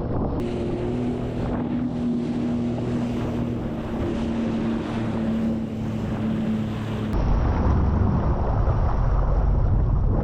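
Jet ski engine running steadily at low speed, with wind noise on the microphone and water noise. About seven seconds in the engine tone drops out abruptly, and a louder, lower wind rumble takes over.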